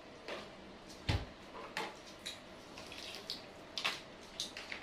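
Quiet mealtime sounds: scattered small wet clicks and taps from eating and handling food, with a soft thump about a second in.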